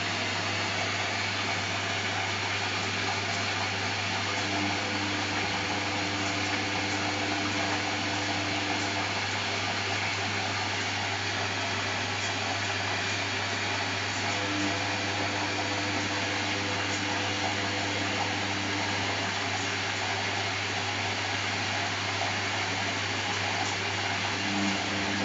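Samsung WF70F5E0N4W front-loading washing machine running steadily in its intermediate spin between the main wash and the rinse, a constant motor and drum whirr with a low hum underneath.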